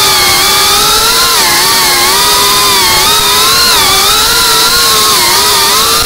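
GEPRC Cinelog 35 FPV cinewhoop's motors and propellers whining steadily, the pitch wavering up and down as the throttle changes.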